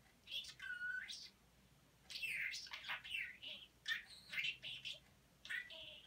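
Budgerigar chattering in quick, high-pitched warbles and chirps, with its mimicked talk mixed in. It comes in bursts broken by short pauses.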